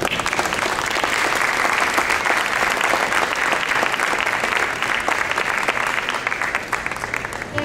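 Audience applauding, starting suddenly and thinning slightly near the end.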